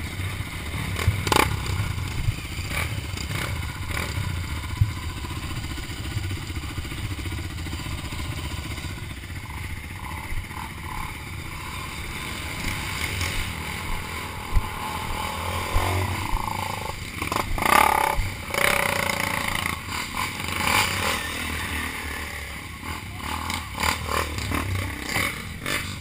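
Dirt bike engines running, the revs rising and falling in places, over a steady low rumble. Sharp knocks and clatter come as the bikes move over the rough trail, with a louder burst of revving a little past halfway.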